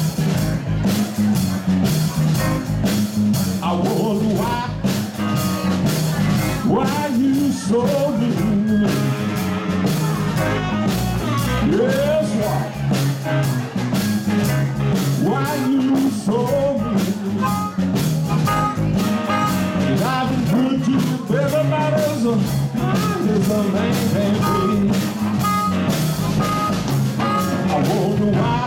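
Live blues band playing: electric guitars and a drum kit, with a bending, sliding lead line carried on the hand-held microphone.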